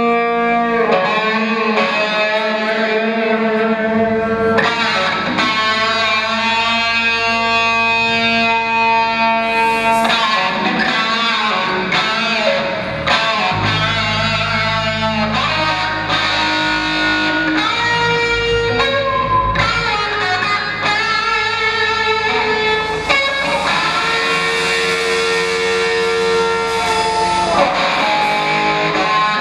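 Live instrumental rock: electric guitars through effects and distortion playing long, ringing sustained notes, with a bass line coming in about four seconds in.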